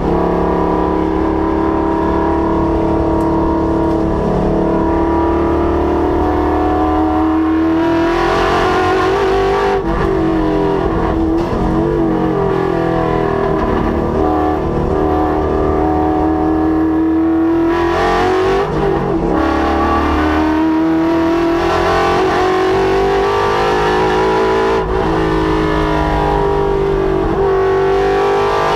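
Ford Coyote 5.0 V8 of a Mustang running hard on a race track, its engine note holding high and climbing. Twice, about eight seconds in and again around eighteen seconds, the pitch falls and wavers as the revs drop, then rises again as it pulls back up through the revs.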